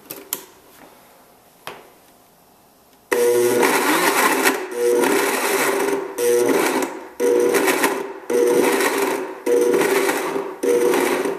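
Blendtec blender pulsing on chunks of pineapple, starting about three seconds in and running in repeated bursts of about a second each with brief dips between them. A couple of clicks come before it as the lid is fitted onto the jar.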